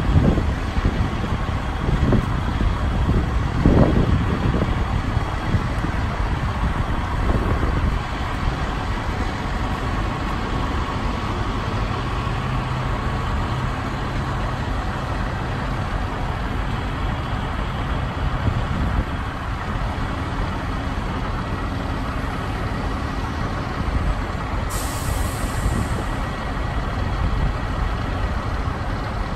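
Heavy diesel engines of a mobile crane and a semi-truck running steadily while the crane carries a steel truss, with a few dull knocks in the first four seconds. About 25 seconds in there is a short hiss of released air, like an air brake.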